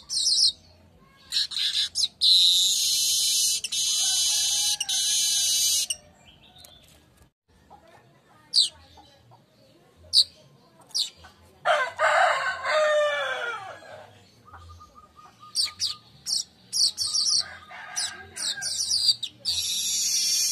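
Manyar (weaver bird) song: high, buzzy, sizzling chatters in repeated bursts, one long run of about four seconds early on, the rest short bursts. A rooster crows once, about halfway through.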